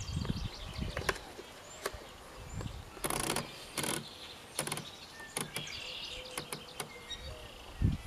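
Scattered light clicks and a couple of short rustles as a hand handles a manual typewriter at its carriage end, with faint chirping in the background.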